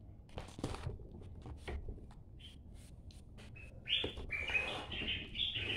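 Drafting ruler and paper being handled: light taps and rustles. A few short high chirps come about halfway through, and a denser run of them fills the last two seconds.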